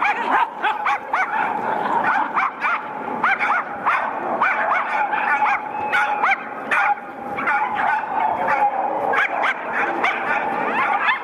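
A dog barking and yipping over and over, in short high barks about two or three a second.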